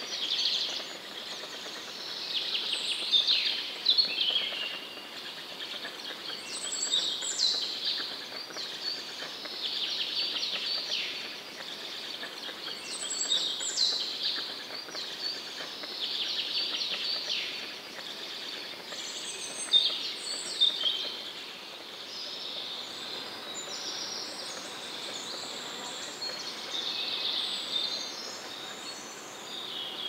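Birds singing and calling: many short, overlapping high chirps and trills that come and go throughout.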